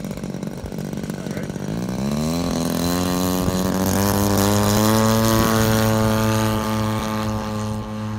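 Radio-controlled model airplane's engine and propeller running, rising in pitch as it speeds up about two seconds in, then holding a steady high speed.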